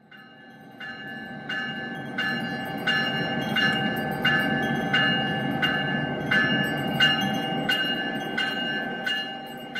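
Locomotive bell ringing steadily, about three strikes every two seconds, over a low rumble. It fades in over the first couple of seconds.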